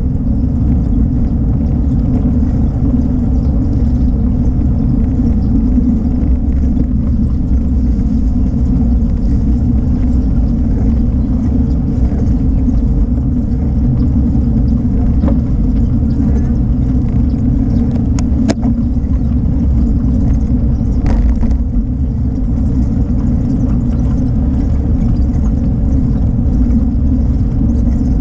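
Steady low rumble of wind buffeting the camera microphone on a moving bicycle, mixed with the tyres rolling over a rough asphalt path. A couple of faint clicks come through in the second half.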